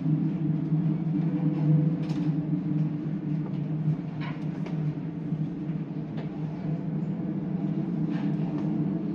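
Steady low drone of the car ferry Sunflower Sapporo's engines and machinery, with a few light clinks of tableware.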